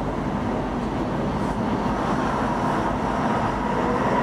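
Stockholm commuter rail X10 electric multiple unit running, heard from inside the carriage: a steady rumble of wheels and running gear with a faint steady whine that grows slightly louder near the end.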